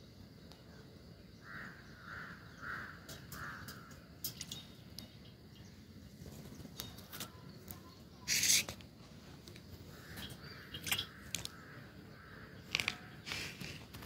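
Pet parrot giving a run of short, repeated calls, with several brief noisy bursts in between, the loudest about eight and a half seconds in.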